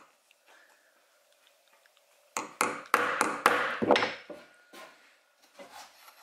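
Hammer tapping a makeshift hand punch through a sheet of paronite gasket material laid on a wooden block, knocking out a bolt hole. There are about seven quick sharp strikes beginning about two seconds in, then a few fainter knocks near the end.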